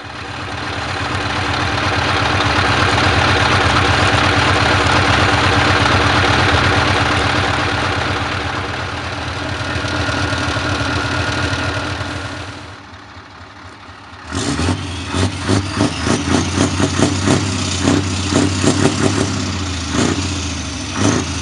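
Scania R500 truck's V8 diesel engine running loud and steady, swelling over the first few seconds and easing off a little before dropping away about 13 seconds in. About a second later it comes back with a run of sharp, quick pulses over its low note.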